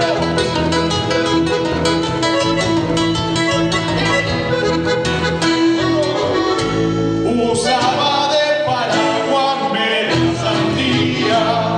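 Live Latin American folk music: a guitar strummed in a steady rhythm over held bass notes. About seven and a half seconds in, a melody with sliding pitch comes in over it.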